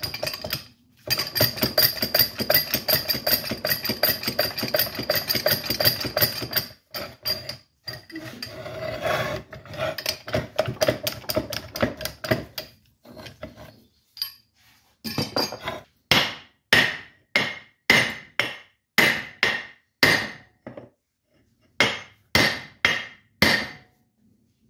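Hammer blows on the steel parts of a hoist spindle seized solid by rust. A fast, dense clatter of strikes with a steady metallic ring fills the first half; in the second half come separate ringing blows, about three a second.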